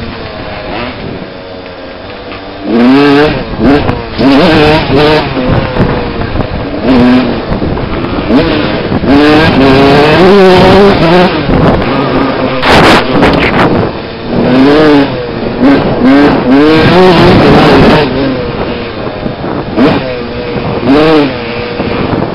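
Dirt bike engine heard close up from the rider's helmet camera, revving hard and running up through the gears, its pitch climbing and dropping again and again after a quieter first couple of seconds. A short loud rush of noise cuts across about thirteen seconds in.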